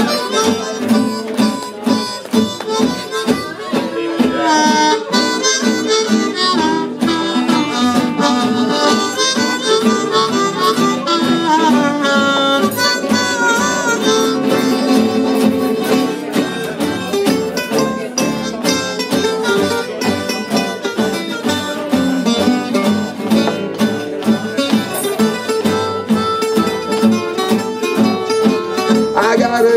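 Harmonica playing a solo with bending notes, over strummed acoustic guitars and an upright double bass.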